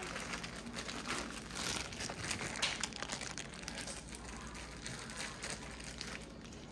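Crinkling and rustling with many small irregular clicks as carrots are added to a disposable aluminium foil roasting pan.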